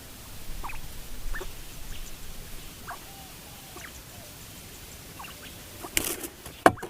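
Small animal giving short, high squeaks and chirps, some sliding in pitch, scattered across the clip. A sharp clatter near the end, with a loud knock just before it ends.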